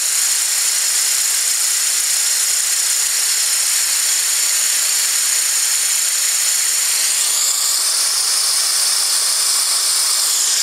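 Steady hiss of compressed air rushing through a venturi nozzle onto a fan blade, with the venturi open and drawing air; the hiss shifts slightly in tone about seven seconds in.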